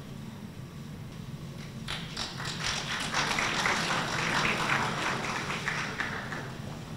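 Audience applause: clapping starts about two seconds in, swells, and dies away near the end, over a low steady hum.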